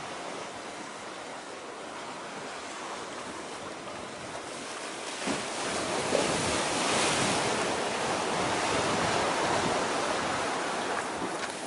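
Sea waves washing near the shore, with wind on the microphone. A louder wash swells up about five seconds in and eases back near the end.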